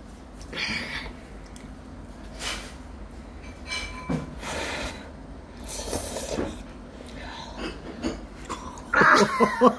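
A child eating spicy cup noodles with chopsticks: a few short slurping and sniffing sounds, spaced a second or two apart. A brief burst of voice comes near the end.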